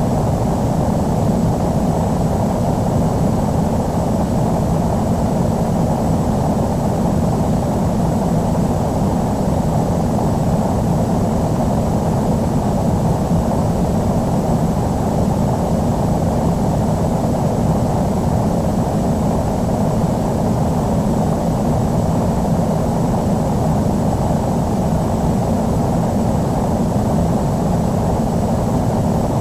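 Steady jet aircraft noise, dull and low-pitched, never rising or falling.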